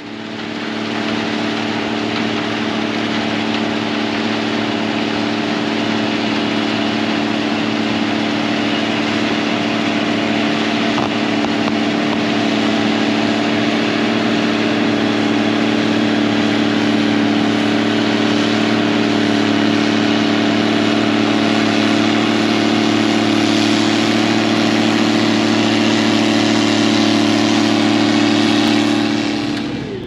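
Gleaner R72 combine harvester running steadily while harvesting wheat: a constant drone of several held tones under a broad rushing noise.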